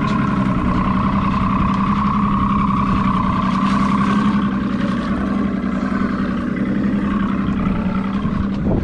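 Boat's outboard motor running steadily, an even hum with a higher, fainter whine above it.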